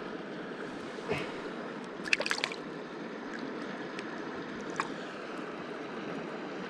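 Steady rush of flowing stream water, with a few short sharp clicks over it, a small cluster of them about two seconds in.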